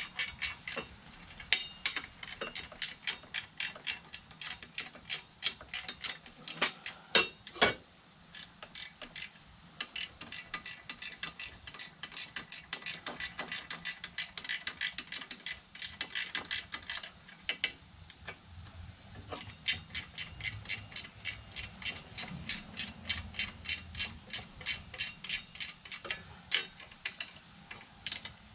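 Hand ratchet wrench clicking in runs of quick strokes with short pauses, snugging the exhaust header bolts on a quad's engine; one louder knock about eight seconds in.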